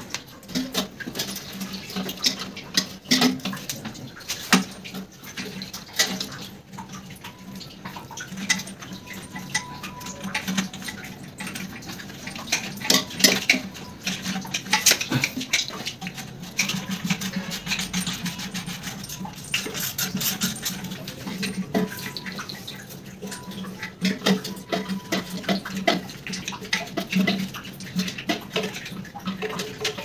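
Plastic clicks and knocks as flush-valve and float parts are handled and fitted inside a ceramic toilet cistern, scattered irregularly with a few louder knocks.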